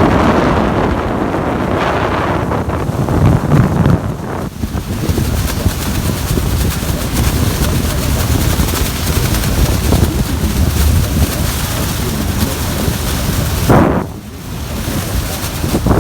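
Steady roar of Niagara Falls' plunging water, heavily mixed with wind buffeting the microphone. The noise drops briefly about fourteen seconds in, then comes back.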